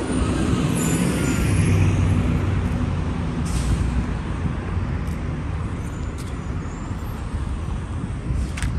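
Street traffic with a city bus engine running nearby, its low drone fading gradually over the first half. A brief hiss about three and a half seconds in.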